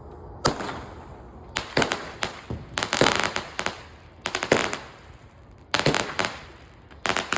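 Consumer firework going off in a run of sharp bangs and crackles, coming in clusters about once a second with short pauses between.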